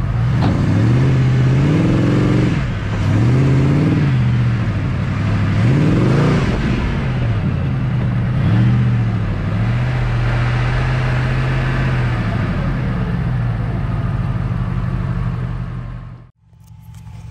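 Off-road buggy's engine heard from on board, driven hard on a dirt track: the engine pitch climbs and drops about five times as it revs and eases off, then holds steady for a few seconds. The sound falls away and cuts off abruptly about a second before the end.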